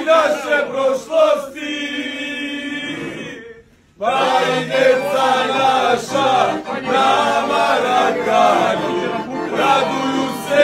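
A group of men singing a chant together. The singing breaks off for a moment about four seconds in, then starts up again at full strength.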